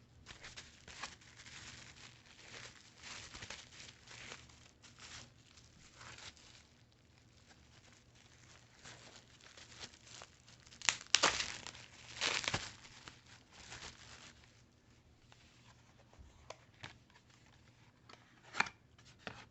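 Card packaging and sleeves being handled: intermittent rustling and crinkling, with two louder tearing, crinkling bursts about eleven and twelve and a half seconds in.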